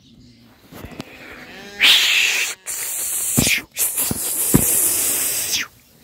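A flock of lambs, with a faint bleat about a second in. It is then covered by a loud, rough rushing noise on the microphone that stops shortly before the end.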